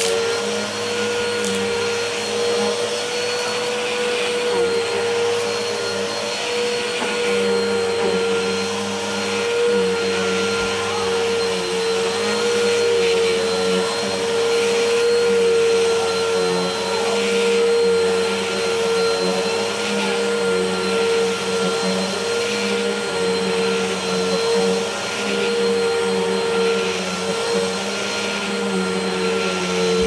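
Bissell Helix upright vacuum cleaner running continuously with a steady motor whine, its suction and brush noise swelling and dipping slightly as it is pushed back and forth over a rug and carpet.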